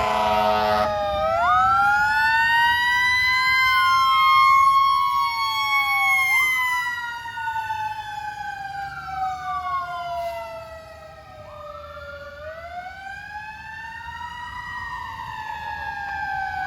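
Fire truck sirens wailing, at least two overlapping, each rising and falling slowly in pitch. A horn blast cuts off about a second in, and the sirens fade a little past the middle before swelling again.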